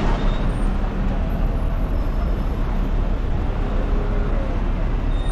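Steady street traffic noise with the low engine rumble of buses and cars running.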